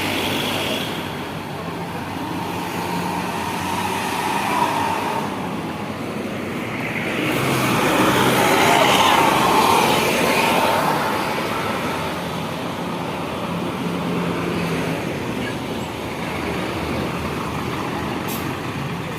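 Large buses driving past with engines running and tyre and road noise. One passes close and is loudest about halfway through.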